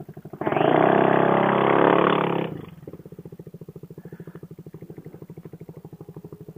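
Motorcycle engine running with an even, pulsing beat, rising into a loud burst of throttle for about two seconds near the start before settling back to a steady idle-like run.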